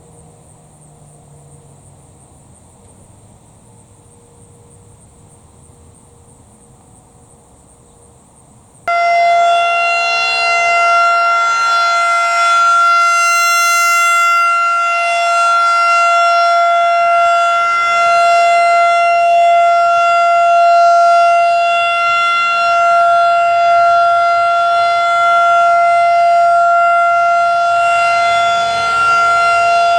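Federal Signal 2nd Gen 2001-SRN rotating outdoor warning siren sounding a steady Alert tone at full speed. It cuts in suddenly about nine seconds in after a quiet stretch, then holds two steady pitches with its loudness slowly swelling and fading as the head rotates.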